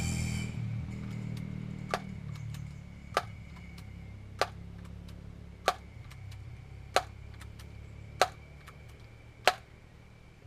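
Daisy PowerLine 901 multi-pump air rifle being pumped: seven sharp clicks about a second and a quarter apart, one for each stroke of the forearm pump lever, charging the rifle for a shot. A low rumble fades out over the first few seconds.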